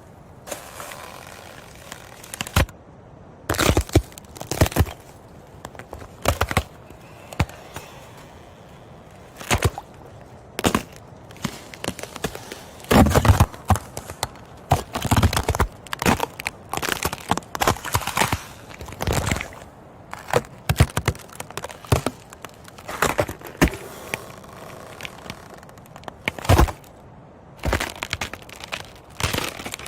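Ice cracking and breaking: irregular sharp cracks and crunches, some single, some in quick clusters, loudest around the middle.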